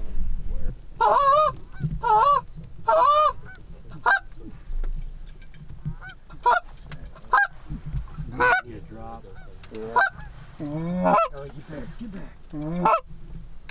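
Canada geese honking: a string of goose calls, three longer wavering honks about a second in, then many short clipped honks spaced unevenly.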